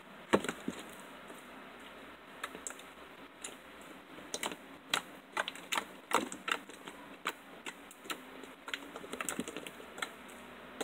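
Hard-top slime crackling and popping as fingers squeeze and break its dried crust: irregular sharp clicks, one loud one just after the start and a dense run from about four to seven seconds in.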